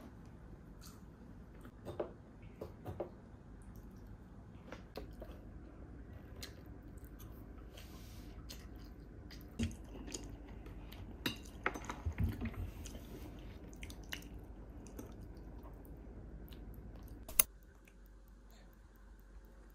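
Scattered light clicks and taps over a steady low hum; a sharp click near the end, after which the hum drops away.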